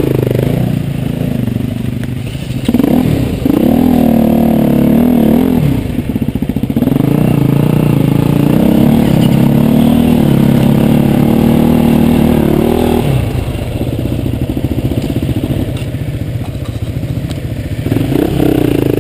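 Enduro dirt bike engines being ridden over rough trail ground, the revs climbing about three seconds in, holding high, easing off after about thirteen seconds and rising again near the end.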